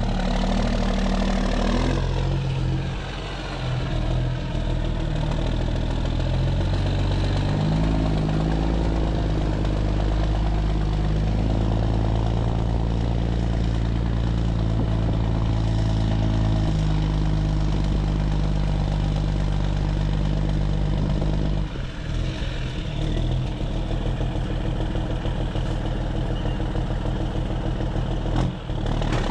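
Cummins CM570-controlled heavy-truck diesel engine running under Jake brake, its pitch falling over the first few seconds and then stepping up and down as engine speed changes, with a short break in the sound about three-quarters of the way through.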